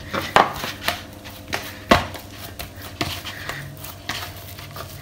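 Hands kneading oiled flour dough in a plastic bowl: irregular thuds and slaps as the dough is pressed, folded and knocked against the bowl, the loudest about two seconds in.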